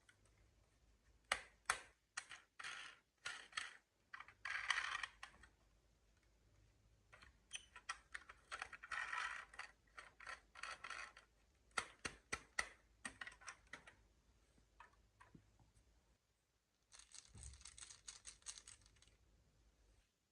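Marbles rolling and clacking through a Cuboro wooden marble run: sharp clicks of marbles striking the wooden blocks, with several short bursts of rolling rattle between them.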